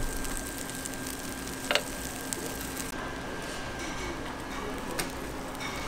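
Steady hiss of batter and fillings cooking in a hot cast-iron fish-shaped bungeoppang mold, with a metal spoon clicking sharply against the mold once a little under two seconds in and again, softer, near the end.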